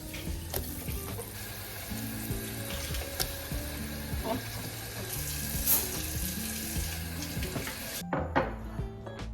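Background music with a melodic bass line over a steady hiss and a few light clicks; the hiss cuts off abruptly about eight seconds in.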